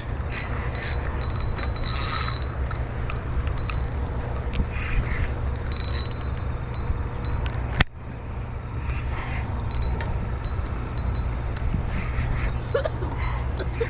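Fishing reel being cranked against a hooked fish, with short spells of rattly clicking from the reel, over a steady low rumble.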